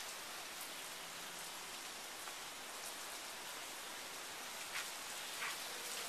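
Steady, even hiss of background noise, with two faint ticks near the end.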